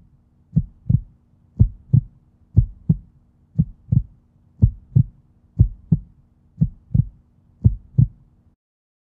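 Heartbeat sound effect: eight pairs of low thumps, lub-dub, about one pair a second, over a faint steady hum, cutting off suddenly near the end.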